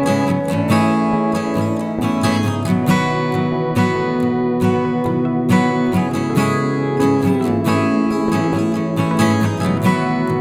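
Background music: acoustic guitar strummed and plucked at a steady rhythm, with some sliding notes.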